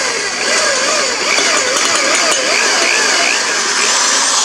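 Electric drill running with a twist bit boring a bigger pilot hole through a painted metal wheel rim. The motor's whine wavers up and down in pitch as the bit cuts.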